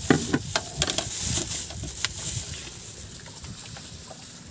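Tableware and a plastic bag being handled as a meal is laid out. There are several sharp clinks and knocks over the first two seconds, then the crinkle of a plastic bag of cooked rice being untied.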